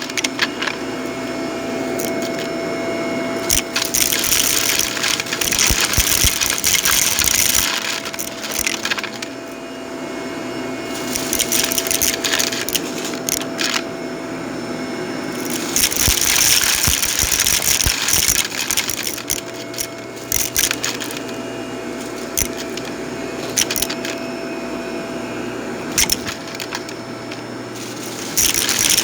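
Vacuum cleaner running over carpet in repeated passes, with crackling and clicking as bits of debris are sucked up; the sound swells and fades with each pass.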